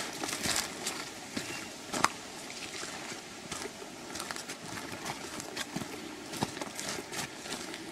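Footsteps crunching through leaf litter and twigs on a bush track: irregular crackles and snaps, with one sharper snap about two seconds in.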